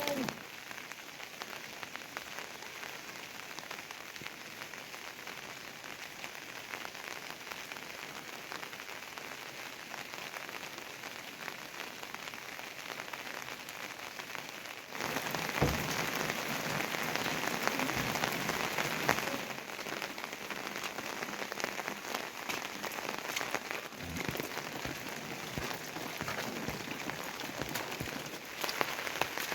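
Rain falling steadily, an even hiss of many drops. It gets louder about halfway through and eases a little a few seconds later.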